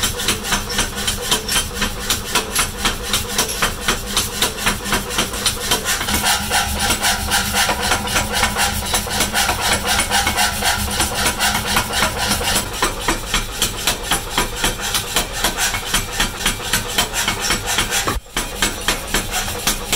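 Power hammer striking red-hot steel in a steady, rapid run of blows, over the steady hum of the machine's motor.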